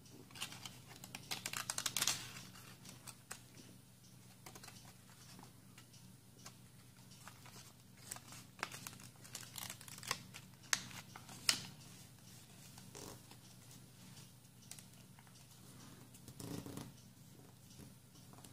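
Origami paper being folded and creased by hand: quiet rustling and sharp crackly clicks as the folds are pressed, busiest about a second in and again around eight to eleven seconds in, with a duller thump near the end.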